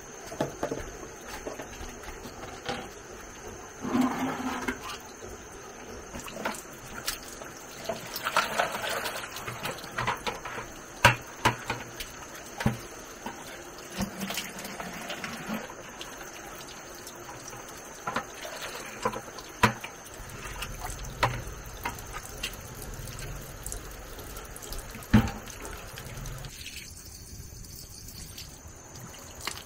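Water running from an outdoor tap and splashing into plastic basins, with many short knocks and rattles of plastic bowls and a plastic colander being handled.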